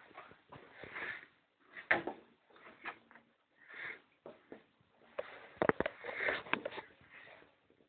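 A dog sniffing and snuffling in short puffs, with a quick cluster of sharp knocks a little past the middle.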